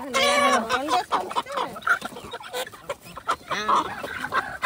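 Domestic chickens clucking and calling over one another, a run of pitched calls with short clicks among them.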